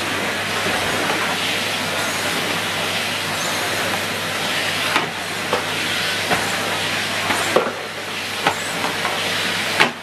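Numatic Henry 160 cylinder vacuum cleaner running steadily while its floor tool is worked over carpet, a constant rushing hiss of motor and airflow. Several light knocks come in the second half as the wand and floor tool are moved, and the hiss dulls briefly about three-quarters through.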